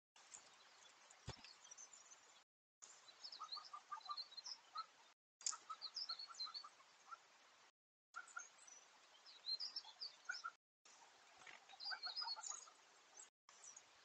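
Wild birds chirping and calling, with short repeated note series and high chirps over a steady recorder hiss. The sound drops out completely every couple of seconds, and there is a single sharp click about a second in.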